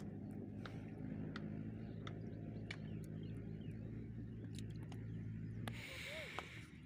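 A steady low engine drone with scattered small ticks and drips of water as fish are worked out of a wet gill net. Just before the end the drone stops abruptly, and a brief hiss and faint bird chirps follow.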